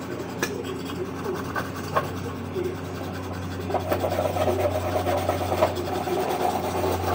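Rasping scrape of grime being scrubbed or scraped off a dirty e-bike part, with a few knocks early and a steady low hum underneath. The scraping grows louder and more continuous about four seconds in.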